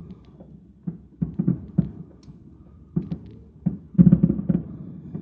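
Fireworks going off en masse in a burning fireworks warehouse: irregular, mostly low booms and bangs, with a loud cluster of booms about four seconds in.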